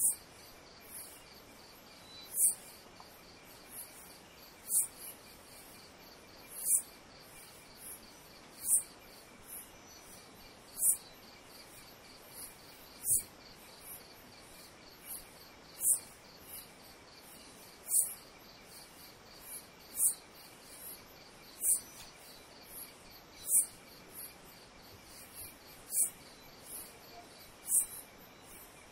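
Insects calling: a short, sharp, high chirp about every two seconds over a fainter steady insect trill.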